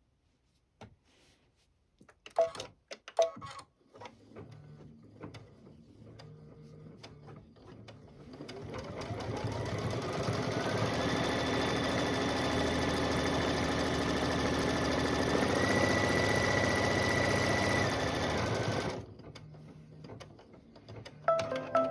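Computerized embroidery machine stitching down a fabric piece in the hoop. After two sharp clicks, the needle starts slowly, then the motor's whine rises in pitch as it speeds up. It runs steadily for about ten seconds and stops suddenly near the end.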